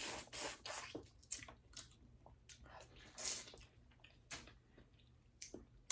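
Close-miked eating of boiled crawfish in sauce: wet squishing and chewing, coming in short bursts with scattered clicks.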